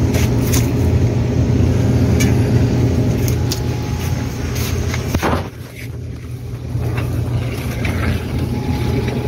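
Steady low machine hum, with scattered light clicks and crinkles as bagged produce is handled. The hum drops briefly about five and a half seconds in.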